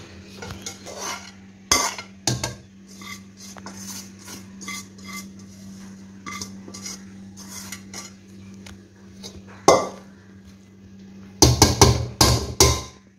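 Metal spoon scraping and clinking against a large metal cooking pot while rice and chicken are spread in it. There are sharp clanks about two seconds in and again near ten seconds, and a quick run of loud clanks near the end, over a steady low hum.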